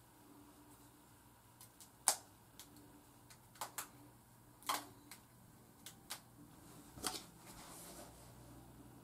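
Small rubber bands snapping as they are twisted around sisterlocks by hand: about eight sharp, irregular snaps, the loudest about two seconds in, with a faint rustle of hair near the end.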